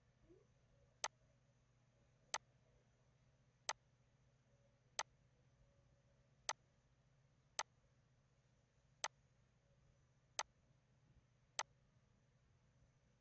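Computer mouse clicking: nine sharp single clicks, roughly one every second and a quarter, over near silence with a faint low hum.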